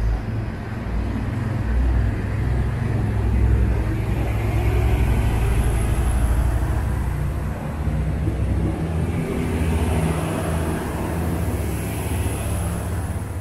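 Siemens Desiro Classic diesel multiple unit pulling out of the platform and passing close by, its diesel engines running under power with a steady low drone; the engine note rises a little about two-thirds of the way through.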